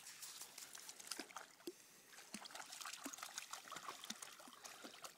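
Faint splashing and trickling of shallow water as a miniature schnauzer wades through it.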